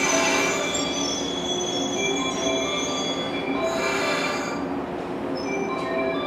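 A stationary electric train's onboard equipment running, a steady hum with short whining tones that shift in pitch. There are two brief hisses, one at the start and one about four seconds in.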